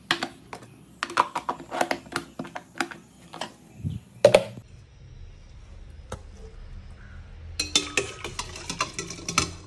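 Kitchen utensils clinking and knocking as cooked rice is spooned into a lunch box: a busy run of sharp clinks, a lull of about three seconds, then a second dense run of clinks near the end.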